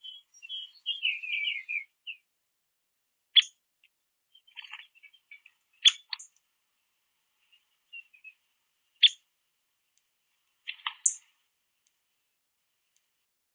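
Male downy woodpecker at a feeder giving a run of quiet, chattering chirps at the start and scattered soft notes after, with a few sharp knocks spread through.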